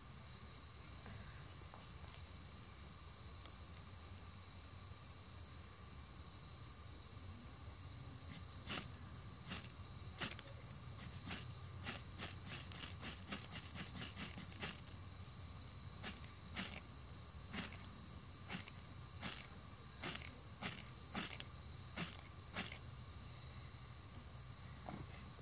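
Crickets trilling steadily at night. From about a third of the way in, a run of sharp clicks, roughly one or two a second, stands out above the insects and stops a few seconds before the end.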